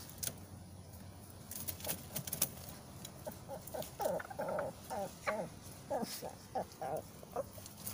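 Chickens clucking inside a bamboo coop: a run of short calls, two or three a second, in the second half. A few sharp clicks come before them.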